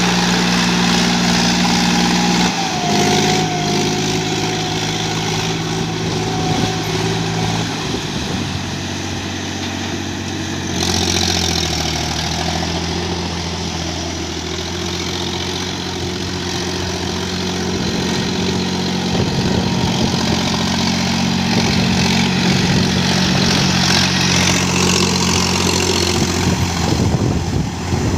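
Mahindra 265 tractor's three-cylinder diesel engine running, its engine note shifting pitch a few times as the speed changes.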